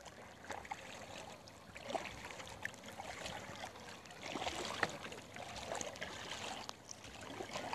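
Faint water lapping and trickling around a kayak's hull on calm water, with scattered small drips and ticks.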